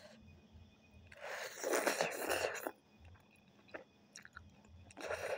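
Ramen noodles slurped off chopsticks in one long noisy draw lasting over a second, starting about a second in. Quiet chewing follows, then a second short slurp near the end.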